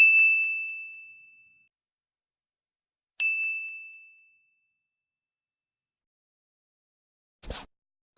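A bell-like ding sound effect struck twice, about three seconds apart, each a clear high tone ringing out and fading over a second or so. Near the end comes a brief double rustling burst.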